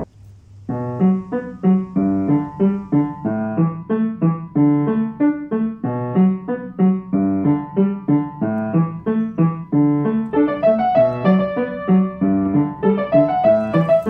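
Background piano music: a steady run of single notes starts about a second in, and higher notes join near the end.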